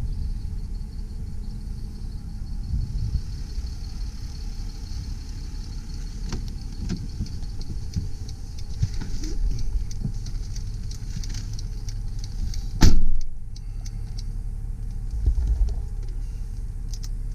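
2007 Mercedes ML320 CDI's 3.0-litre V6 turbodiesel idling steadily, with scattered light knocks and one loud sharp thump about 13 seconds in.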